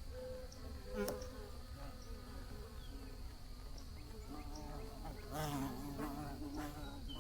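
Bees buzzing in flight, their hum wavering up and down in pitch as they pass close, loudest about two-thirds of the way through. A sharp click about a second in.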